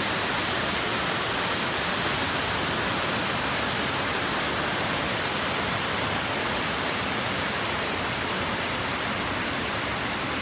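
Waterfall and the rocky stream below it rushing, a loud, steady roar of falling and tumbling water.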